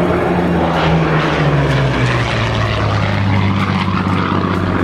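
Hawker Hurricane's Rolls-Royce Merlin V12 engine flying past, its pitch dropping as it goes by and then holding steady.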